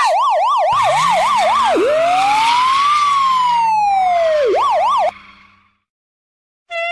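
Electronic emergency-vehicle siren: a rapid yelp, then one slow wail that rises and falls, then the rapid yelp again, cut off suddenly about five seconds in. A lower wavering tone runs under it from about a second in, and a new steady horn-like tone starts right at the end.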